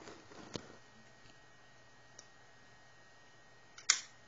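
Quantum ProDrive hard drive in a Macintosh LC II spinning, a faint steady high whine over a low hum. There are a few light clicks in the first second, then one sharp click about four seconds in.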